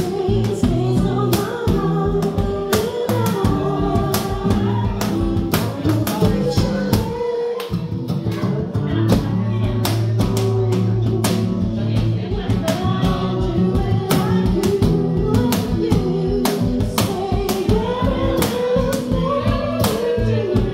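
Live acoustic band: two women singing a song into microphones, with acoustic guitar and a cajon keeping a steady beat.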